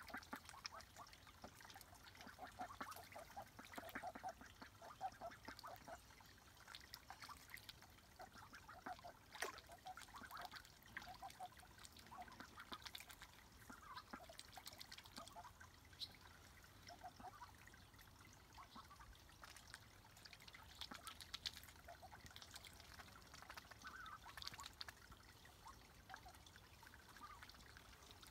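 Faint sounds of young Swedish Yellow ducks dabbling and swimming: small splashes and dribbling water from their bills, with soft, quiet duck calls now and then.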